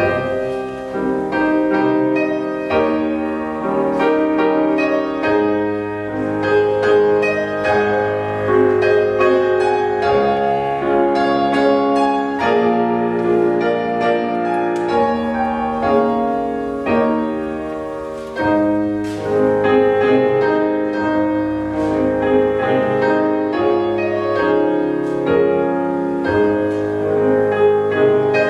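Petrof grand piano played solo: a classical piece in a continuous flow of notes and chords.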